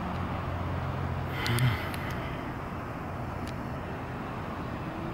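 Outdoor background noise: a steady hiss with a low droning hum that ends after a brief louder swell about a second and a half in, with a few faint high ticks.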